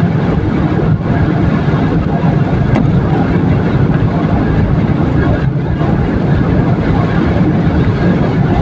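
Steady road and engine noise inside a moving car, its tyres running on a rain-soaked highway.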